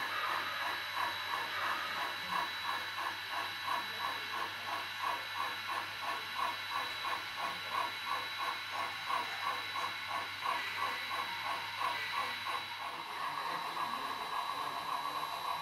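HO-scale model geared steam locomotive's sound unit playing a regular chuff, about three beats a second, over a steady hiss. The chuffing stops about 13 seconds in, leaving the hiss.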